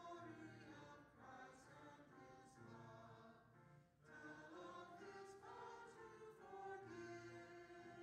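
A small group of voices singing a hymn together, faint and reverberant across a church sanctuary, in two sung phrases with a brief breath pause about four seconds in.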